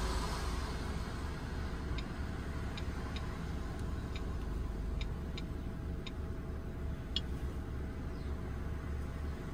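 A low steady engine hum, the Mitsubishi Colt Plus 1.5-litre idling, with about nine short ticks from fingers tapping a diagnostic scanner's touchscreen keyboard between about two and seven seconds in.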